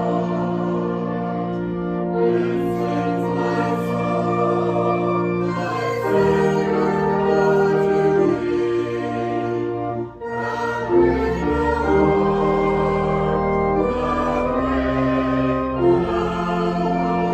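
Slow church music on organ: long held chords that change every couple of seconds.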